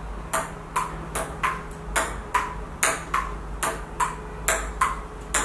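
Table-tennis ball knocked back and forth across a table in a rally, a light click about two to three times a second.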